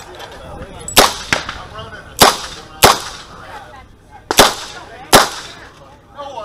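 Chiappa Rhino revolver firing .38 Special rounds: five sharp shots at uneven intervals, the first about a second in and the last just past five seconds.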